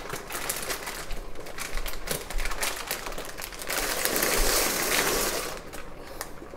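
Pot of water at a rolling boil, bubbling with a dense, quick crackle of clicks. About four seconds in, dry pasta is poured from a plastic bag into the water, a louder rush of rattling and splashing that lasts over a second before the bubbling carries on.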